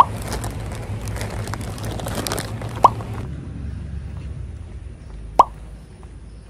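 A plastic snack packet crinkling and rustling in the hand while walking; about three seconds in this gives way to a quieter outdoor hush. Three short, loud pops stand out, a couple of seconds apart.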